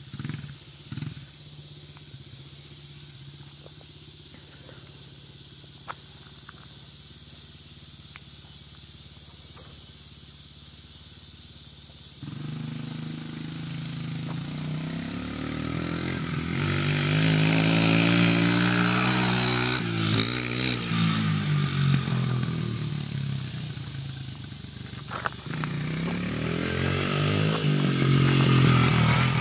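Engine of a small child's dirt bike: faint and steady at first, then suddenly louder about twelve seconds in, its pitch rising and falling with the throttle as the bike rides about. It dips briefly, then is loud again near the end as it comes close.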